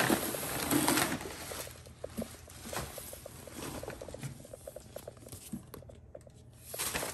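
Paper and cardboard packaging handled and rustling, busiest in the first two seconds, then lighter crinkling and small taps.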